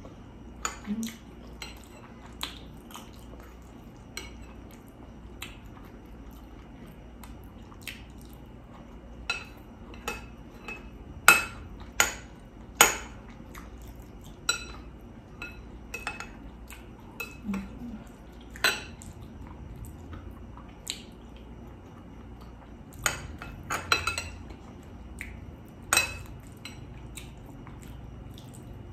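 Cutlery clinking against a dish while eating: scattered, irregular sharp clicks, the loudest few coming about halfway in.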